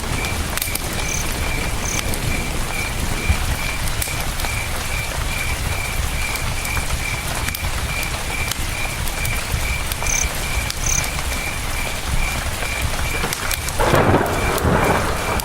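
Campfire crackling with scattered pops over a steady low rush of river water, while a cricket chirps in an even pulse, about two or three chirps a second. About fourteen seconds in, the crackling and hiss briefly grow louder.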